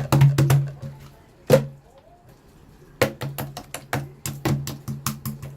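Slime being squeezed and pressed by hand, giving runs of crisp popping clicks, about four to six a second. The clicks break off after about a second, with one loud pop in the pause, then start again about three seconds in.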